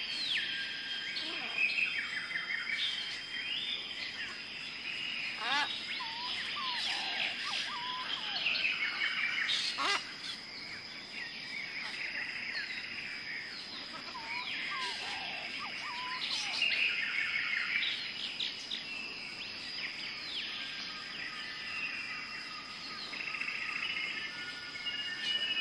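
Wild birds chirping and whistling in short overlapping calls and falling phrases, over a steady high-pitched tone.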